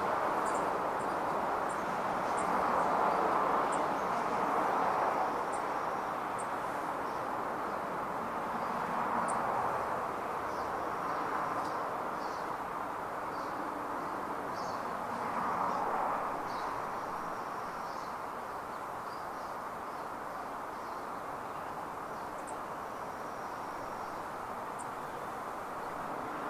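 Road traffic noise, a steady hum that swells and fades as vehicles pass, loudest about four, nine and fifteen seconds in. Short, high bird chirps are scattered over it.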